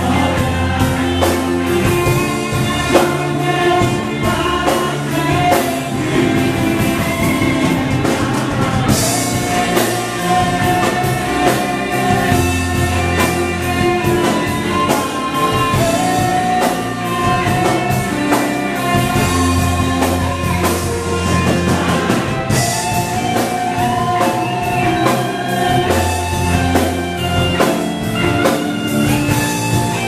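Live church worship band: several voices singing together over bass guitar, electric guitar and drum kit. The cymbals swell brighter about nine seconds in and again past twenty-two seconds.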